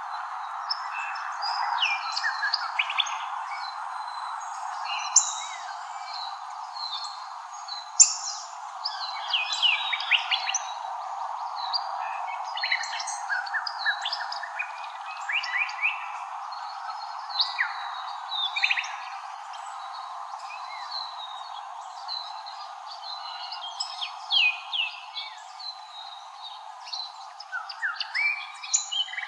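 Birds chirping and twittering: many short, quick calls, some in fast runs of notes, over a steady even hiss.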